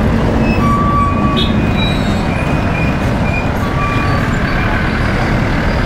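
Steady low rumble of busy street traffic, heavy vehicles running close by, with a few short thin high tones over it.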